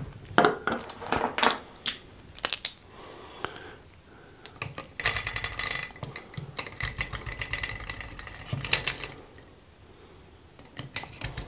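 Batteries being fitted into the battery compartment in the top of a stainless-steel electric salt grinder: scattered sharp clicks and knocks of batteries and metal parts handled, then two stretches of quick rattling clicks as batteries slide into place.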